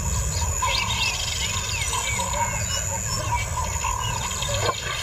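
Small birds chirping and calling, many short rising and falling notes over a steady low rumble.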